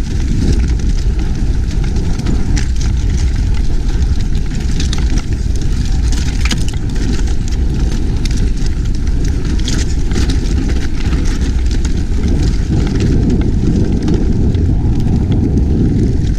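Mountain bike running fast downhill over loose stony ground, heard from an onboard action camera: steady wind buffeting and tyre rumble, with scattered clicks and rattles from stones and the bike.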